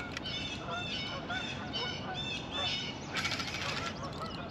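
Geese honking, a quick series of short calls through the first three seconds. About three seconds in comes a short high hiss.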